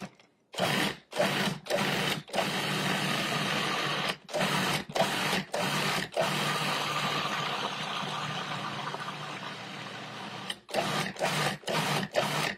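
Cuisinart food processor pulsed to purée guacamole ingredients: the motor starts and stops in short bursts of whirring, with a longer run of about four seconds in the second half and a quick string of pulses near the end.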